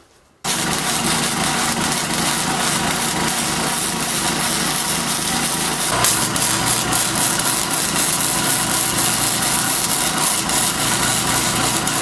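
Electric arc welding on a beveled steel joint: a continuous crackling sizzle from the arc that starts abruptly about half a second in.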